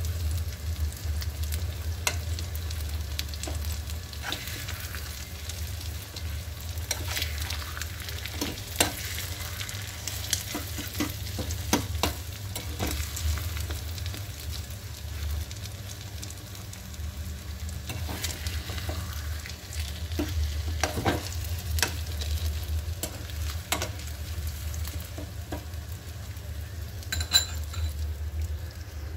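Eggs with chopped onion and coriander leaves sizzling in oil in a small frying pan, while a metal fork stirs them and clicks and scrapes against the pan again and again. A steady low hum runs underneath.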